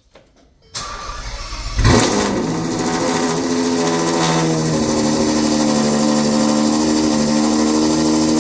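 Ferrari 812 GTS 6.5-litre V12 being started: the starter cranks for about a second, the engine catches with a loud flare about two seconds in, then the revs fall over a few seconds and settle into a steady idle through the exhaust.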